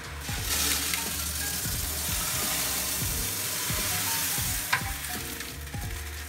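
White aquarium gravel poured from a bag onto the glass bottom of an empty fish tank: a steady hiss of small stones cascading and settling. The pour stops about three-quarters of the way through with a sharp click.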